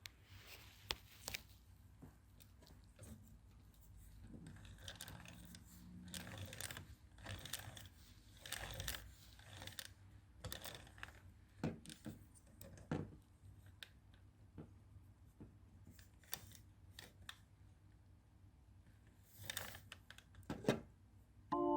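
Faint, irregular clicks and rustling as a small 3D-printed plastic ratchet mechanism on a rubber-band car axle is handled up close.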